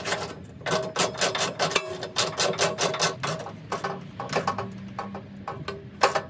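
Quick runs of metallic clicking from a hand wrench tightening a lock nut onto a 1/4-inch stainless steel bolt. The clicking comes about six times a second and thins out after the first half.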